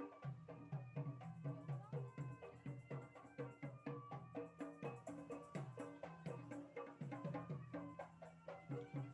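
Background music with a quick, steady beat of short percussive and plucked notes over a pulsing bass line.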